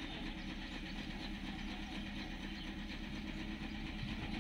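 Heavy-machinery diesel engine running steadily at a constant low speed, with a continuous even hum.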